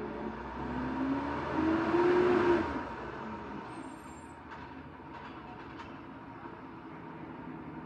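Recycling collection truck's engine revving up, rising in pitch and loudest about two seconds in, then dropping back to a steady idle with a few light knocks.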